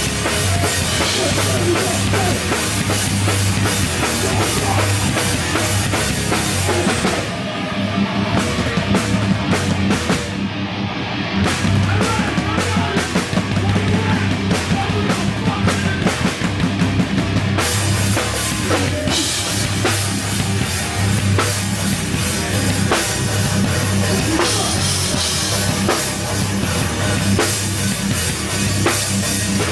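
Hardcore band playing loud live, with the drum kit to the fore. About seven seconds in the cymbal wash drops away for a stretch of separate drum hits, and the full band with cymbals comes back at about eighteen seconds.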